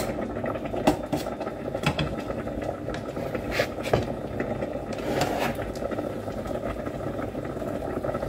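Steel pot of Malabar spinach soup boiling, a steady bubbling hiss and hum, with a few light knocks and clicks of a knife against a plastic cutting board.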